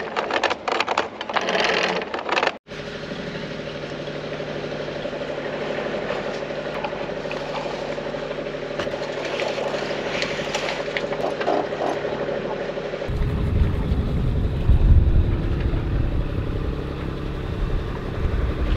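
A sailboat's inboard engine running steadily as the boat motors out of an anchorage. In the first couple of seconds there is a burst of clattering at the bow, and a louder low rumble takes over about 13 seconds in.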